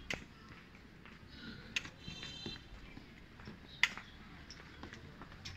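Quiet background with a few sharp clicks about two seconds apart, the loudest near the four-second mark, and a brief faint high warbling tone just past the middle.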